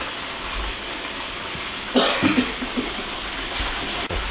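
A person coughs once, about two seconds in. Under it runs a steady wet swishing hiss of small dried fish being rubbed and washed by hand in a basin of water.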